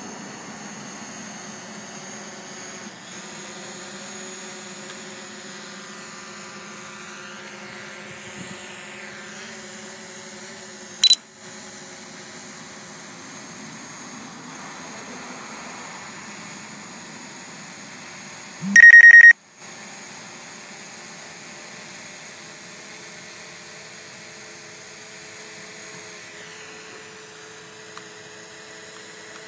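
DJI Mavic Pro quadcopter's propellers humming steadily with a thin whine, the pitch shifting a little as it manoeuvres. A sharp click about 11 seconds in, and a loud high beep lasting about half a second near 19 seconds in.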